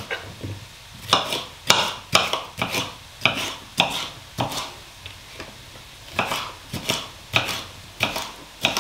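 Kitchen knife chopping red bell pepper on a chopping board: sharp knocks about two a second, with a short pause about halfway through.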